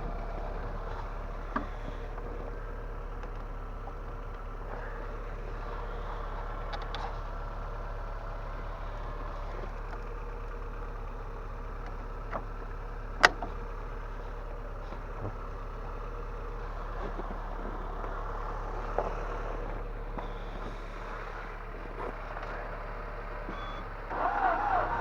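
Steady low hum with a few scattered clicks and one sharp click about halfway. Near the end, a louder, evenly pulsing sound starts, typical of the starter cranking the no-start Nissan Primera P12's engine.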